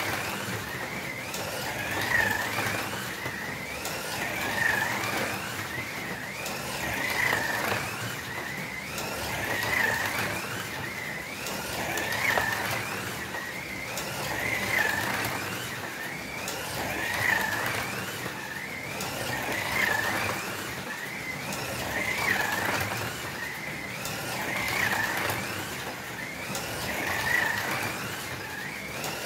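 Two electric slot cars, a Fly Martini Porsche 911 and a Scalextric Jägermeister Porsche 911, lapping the track. Their small motors and gears make a high whine that rises and falls in pitch as they speed up and slow down through the bends. The whine swells each time the cars pass close, about every two and a half seconds.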